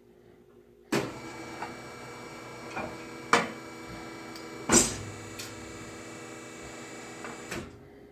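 Automatic milking machine switched on with a sudden start about a second in. It runs steadily with several sharp knocks and clunks, then shuts off shortly before the end.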